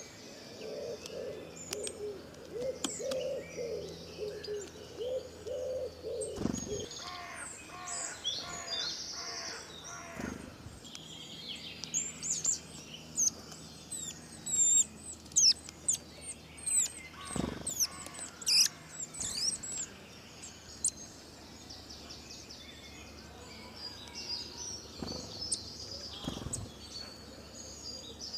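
Several birds chirping and twittering, with quick high notes and sharp downward-sweeping calls that are busiest in the middle. A lower, repeated call sounds through the first few seconds.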